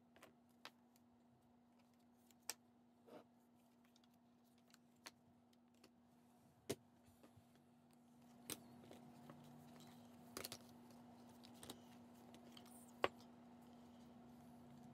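Scattered sharp clicks and taps as a wire-bound spiral notebook is picked up and turned over on a wooden desk, the loudest about 13 seconds in, over a steady low hum.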